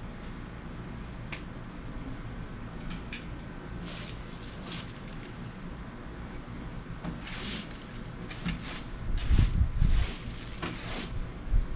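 Broom bristles sweeping across wooden deck boards in short, irregular hissing strokes, growing louder about nine seconds in, with a low rumble under them.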